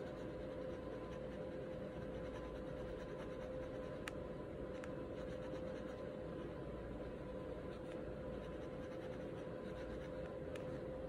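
Pen tip scratching and tapping lightly on paper while inking small details, with a few faint clicks. A steady faint hum runs underneath.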